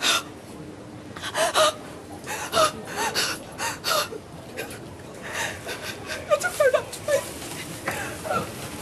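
A woman's distressed gasping breaths and short whimpering sobs, repeated irregularly, with no words.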